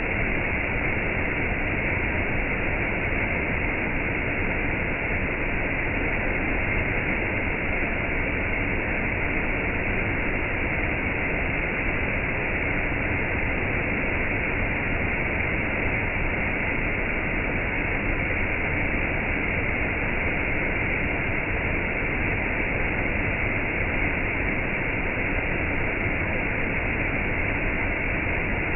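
A steady, even rush of falling water: rain blended with a waterfall, with no drops or splashes standing out.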